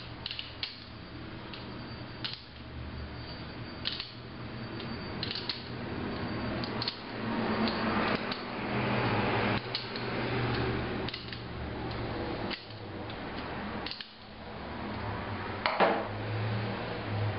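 Light metallic clicks and rubbing as a furler head swivel's spindle is turned out of its aluminium body by hand, with a sharper clink near the end.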